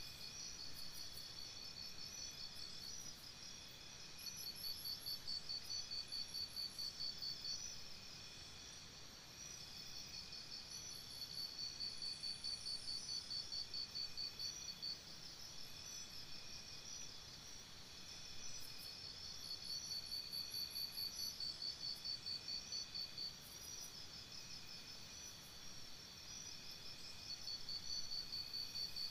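Crickets chirping: high, fast, evenly pulsed trills in runs of a few seconds, each run separated by a short lull.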